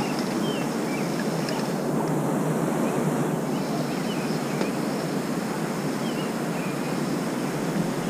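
Steady rushing outdoor noise, with a small bird chirping short high notes over it about once a second.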